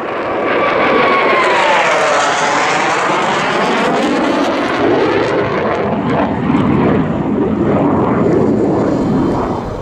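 Jet aircraft passing, a loud rushing roar with a whine that swoops down and back up, then a rough steady roar that fades near the end.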